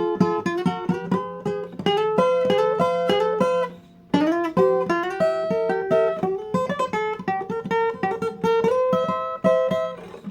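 Acoustic blues guitar playing an instrumental passage of recorded music, fast plucked notes with a short pause about four seconds in.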